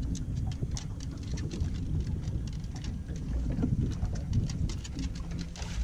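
Small waves lapping and slapping against a fiberglass boat hull in many quick irregular splashes, over a steady low rumble of wind on the microphone.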